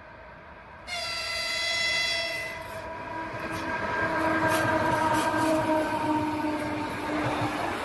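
EP1M electric locomotive sounding its horn as it passes with a passenger train: a sudden multi-tone blast about a second in, then a lower, slightly falling tone. Under both, the rumble and clatter of the wheels on the rails grows louder.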